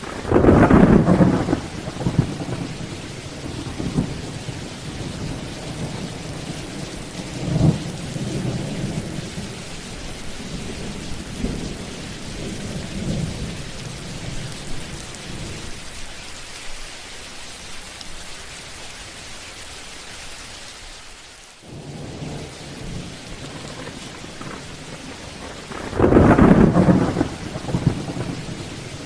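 Thunderstorm: steady rain with thunder. A loud thunderclap comes at the start, rolling rumbles follow through the first half, and a second loud clap comes near the end.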